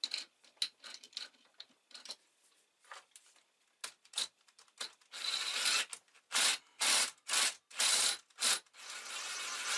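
Three-jaw metal lathe chuck being reassembled: small metallic clicks as the third jaw is seated, then the scroll is turned and the steel jaws slide inward with rough metal-on-metal rubbing, first a longer scrape, then short bursts about twice a second, then another longer scrape near the end.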